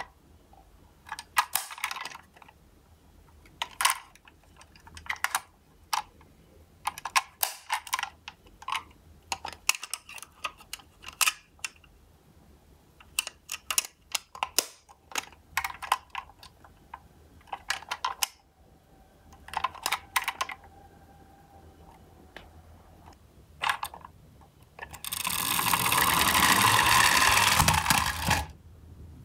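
Sharp clicks and snaps of a miniature toy ambulance van's doors being opened and shut by hand, then about three seconds of its wheels rolling down a wood-grain slope near the end.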